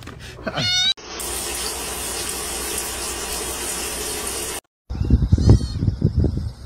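A steady rush of water for about three and a half seconds, a top-loading washing machine filling. It is preceded by a short rising squeal and followed, after a cut, by a kitten's brief mew over low uneven bumps.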